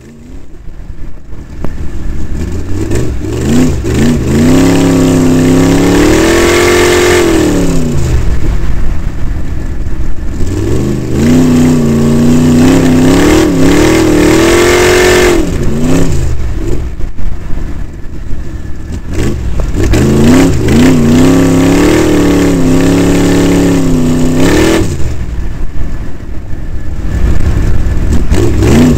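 Off-road race truck's engine, heard close up from a camera on the truck's body, revving up and easing off about four times as it is driven hard.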